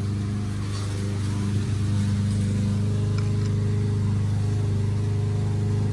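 Steady low mechanical hum at one unchanging pitch, with a stack of even overtones above it.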